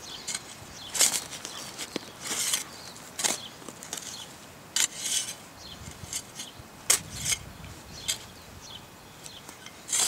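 Blade of a Cold Steel Spetsnaz shovel chopping into hard, dry soil: irregular sharp strikes about once a second, each with a crunch and scrape of dirt as the edge cuts down through earth and roots.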